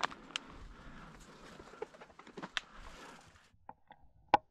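Faint rustling and scattered light clicks as the tail of a shotgun shot fades at the very start. After about three and a half seconds the sound drops to near silence, apart from one sharp click near the end.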